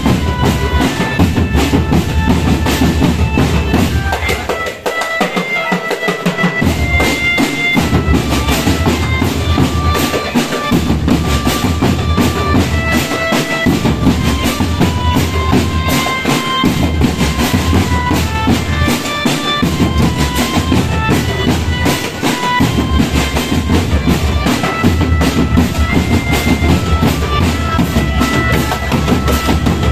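Marching drum band playing: rapid snare-style drumming over a steady bass-drum beat, with a reedy wind-instrument melody of held notes on top. The bass drums drop out for a moment about five seconds in.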